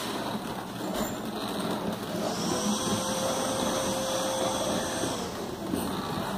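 Plastic wheels of a Little Tikes Cozy Coupe ride-on toy car rolling across a tile floor as it is pushed, a steady rumble. A steady tone joins for about three seconds in the middle.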